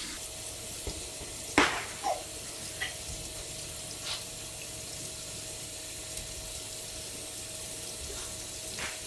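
Kitchen faucet running steadily into a sink while a slab of shark meat is rinsed under the stream by hand. A few short knocks against the sink, the loudest about a second and a half in.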